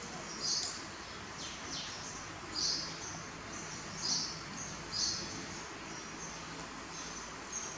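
Small birds chirping, short high chirps every second or so, a few of them sliding downward in pitch, over a steady background hiss.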